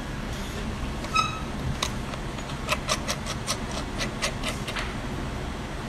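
Small irregular metallic clicks and ticks of a precision screwdriver working the bottom screws of a damaged iPhone's metal housing, over a steady low background noise. A short ringing clink about a second in.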